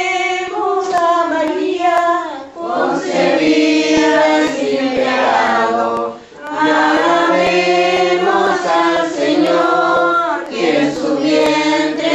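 Several voices, led by a woman's, sing a slow devotional hymn in Spanish in unison, in the manner of a Chilote rezadora leading a prayer. Short pauses between phrases about two and a half and six seconds in.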